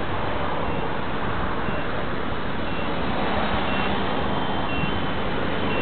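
450-size electric RC helicopter in flight, its rotor and motor making a steady noise. A short high beep repeats about once a second throughout, and a steady high tone sets in near the end.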